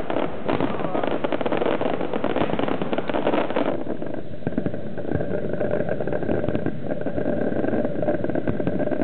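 Fireworks crackling densely, with many sharp pops close together, for about the first four seconds, then thinning to scattered pops over a faint steady hum.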